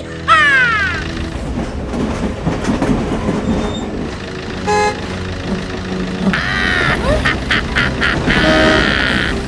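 Cartoon vehicle sound effects: a steady engine running, with a falling whistle-like glide just after the start and several loud horn toots in the second half.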